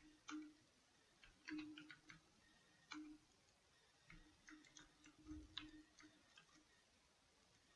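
Faint, irregular clicks of computer keyboard keys being typed, some single and some in short quick runs.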